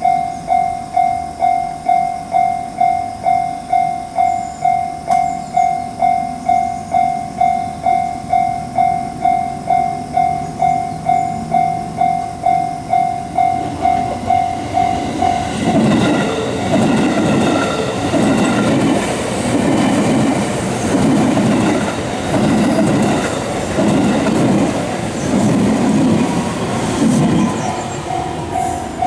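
Japanese level crossing warning bell ringing its steady 'kan-kan' about twice a second. About halfway through, a train passes over the crossing and drowns the bell with a loud clickety-clack of wheels over the rail joints, about one beat a second. The bell is heard again near the end.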